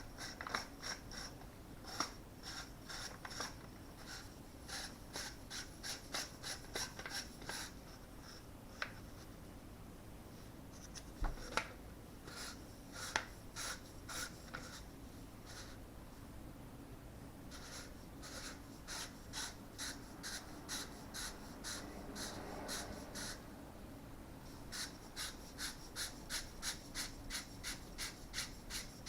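A threaded part being screwed onto an airsoft M4 by hand. It gives runs of small sharp clicks with light rubbing, ticking about three or four times a second near the end.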